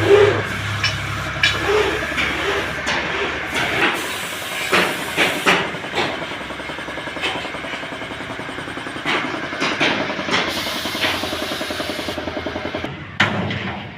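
Machinery clattering with repeated sharp metal knocks. A low engine hum runs for the first four seconds and then stops, and a fast, even ticking follows in the second half.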